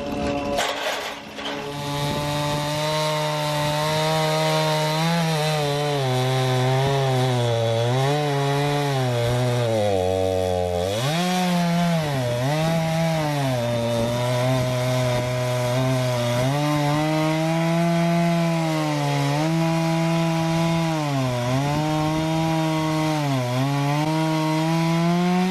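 Stihl MS 251 C-BE two-stroke chainsaw running at high revs while cutting wood. The engine note sags and recovers every couple of seconds as the chain bites, dipping deepest about ten seconds in.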